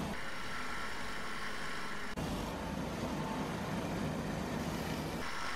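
Belt polishing spindle running, its abrasive belt sanding a copper-plated steel bumper that is held gently against it, with a steady, even noise. There is a momentary break about two seconds in.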